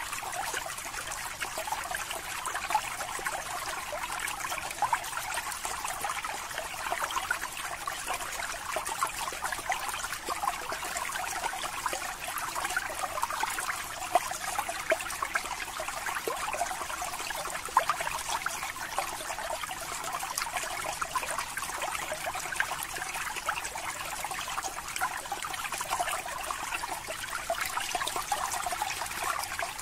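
Aquarium water trickling and bubbling steadily, with many small pops of bubbles at the surface.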